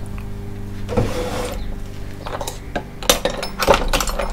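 Metal tools and small parts clinking and rattling, with a brief rustle about a second in and a run of sharp clicks in the second half, over a steady low hum.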